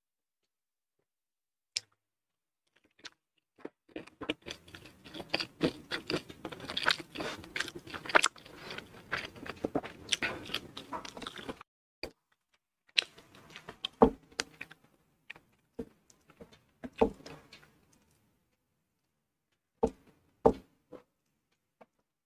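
Close-miked chewing and crunching of a mouthful of rice with crispy fried anchovies and peanuts. The chewing is dense for about eight seconds, then gives way to sparser crunches and a couple of sharp clicks near the end.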